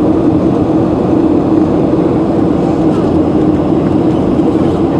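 Airliner cabin noise: a steady, loud rush of jet engine and airflow with a constant low hum.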